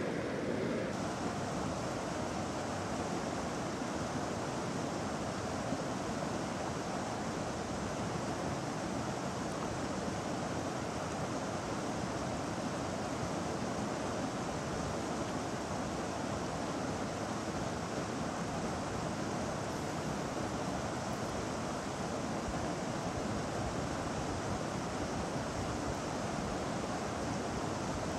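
Steady rush of a fast-flowing river, an even unbroken noise.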